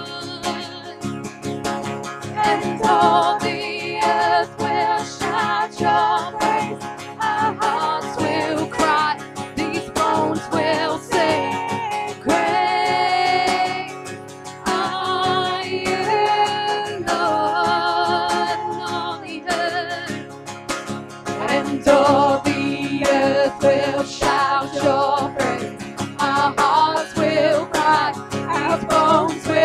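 Two women singing a worship song together over an acoustic guitar, holding some long, wavering notes.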